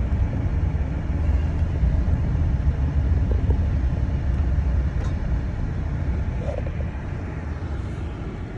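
Steady low rumble of a Chevrolet Silverado 2500HD's 6.6 L Duramax V8 turbodiesel and road noise, heard inside the cab while the truck drives at about 30 mph. The sound eases slightly near the end.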